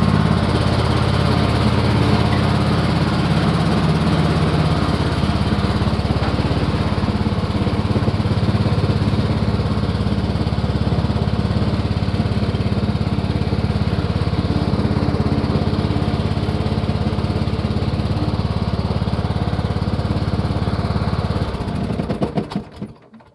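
Cub Cadet LTX1042 lawn tractor's engine running steadily, then shut off near the end and winding down to a stop over about a second.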